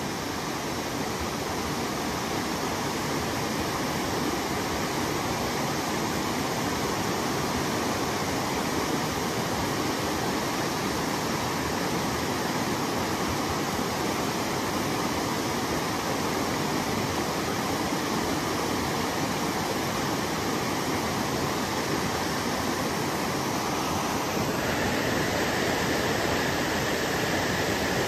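Fast-flowing stream rushing over a small cascade and rocks, a steady rushing of water. Near the end it changes slightly and gets a little louder.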